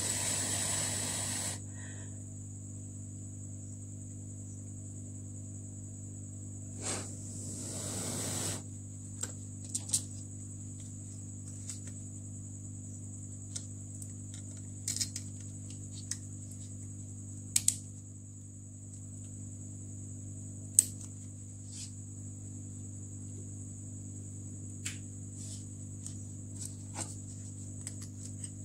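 Electronics repair bench: a steady hum with a high whine underneath. Two short bursts of air hiss come at the very start and again about seven seconds in, with scattered light clicks and taps of small tools.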